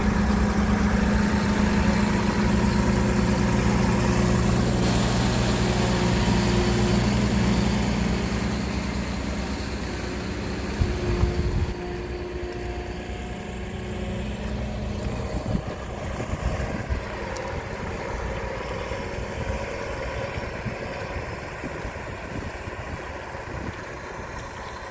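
Diesel engine of a Ponsse Buffalo forwarder idling steadily. It is loudest at first and fades after about eight seconds, with a few brief knocks around the middle.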